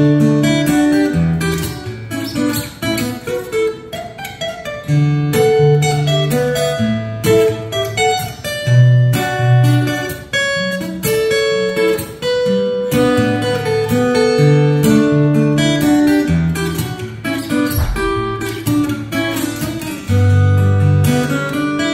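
Solo acoustic guitar played fingerstyle: an instrumental piece with a melody picked over moving bass notes.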